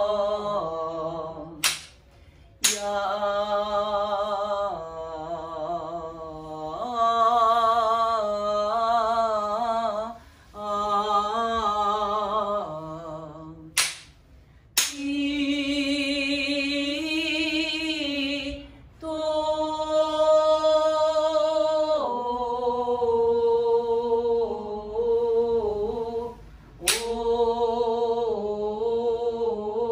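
A woman singing in shirabyoshi utamai style: long held notes with a wavering pitch, in phrases broken by short pauses. A few sharp knocks fall between phrases, twice in pairs about a second apart.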